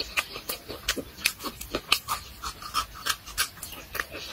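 Close-up eating sounds: wet chewing, lip-smacking and crunching of raw vegetables such as chili pepper, as irregular clicks and smacks several times a second.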